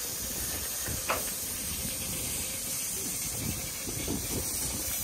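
Small steam tank locomotive standing at the platform, hissing steam steadily, with a single short knock about a second in.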